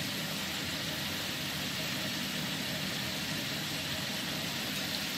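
Chilled potato strips deep-frying in hot oil, a steady even sizzle.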